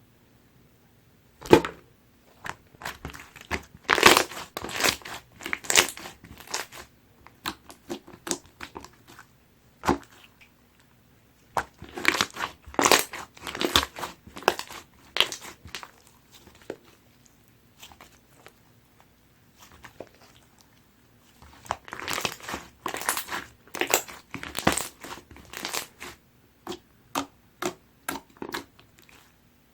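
Hands squeezing and stretching slime, making clusters of sharp wet pops and crackles with short quiet pauses between them.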